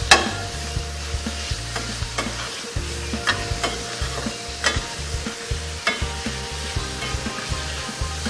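Minced chicken and shallots sizzling in a hot stainless steel frying pan as a metal spoon stir-fries them, scraping and clinking against the pan every second or so; the chicken is being cooked through.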